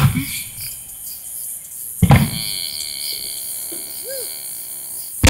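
Fireworks shells bursting overhead: a loud boom right at the start, another about two seconds in and a third at the very end, each trailing off in a low rumble.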